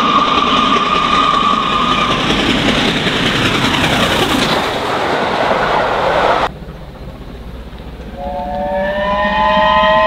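A steam locomotive's whistle holds one steady note for about two seconds over the rumble of a passing train, and the train noise cuts off abruptly about six and a half seconds in. About eight seconds in, a steam locomotive's multi-note chime whistle starts, its notes coming in one after another and growing louder.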